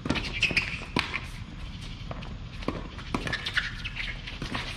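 Tennis ball struck by racquets and bouncing on a hard court during a fast doubles rally: several sharp pops at uneven intervals, the loudest about a second in, with short squeaks of shoes on the court between shots.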